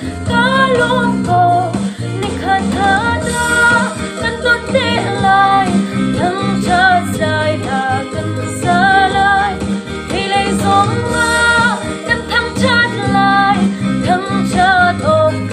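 A woman singing a Lai-language song with vibrato over a steady instrumental accompaniment.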